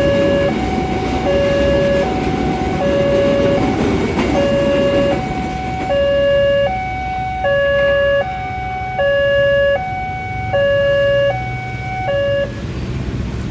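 Railway level-crossing warning alarm sounding an evenly alternating two-tone, hi-lo signal that repeats about every one and a half seconds, then cuts off near the end. A low rumble lies under it for the first five seconds or so.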